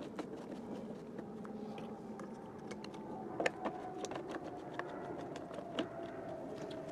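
Light plastic clicks and knocks as a fuel can's flexible spout is handled beside a chainsaw, the sharpest about halfway through and again near the end. Behind them runs a steady hum with a faint tone that slowly drops in pitch.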